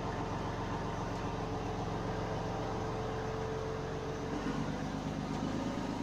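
Fishing boat's engine running steadily under way, its note changing about four seconds in.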